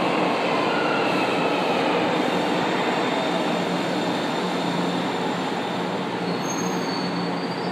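São Paulo Metro Line 1 train pulling into an underground station and braking: a steady rumble of wheels and motors with a faint whine falling in pitch in the first few seconds. A thin high wheel or brake squeal starts near the end.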